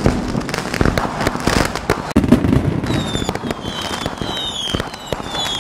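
Fireworks crackling and popping, with a louder bang about two seconds in and short high falling whistles repeating through the second half.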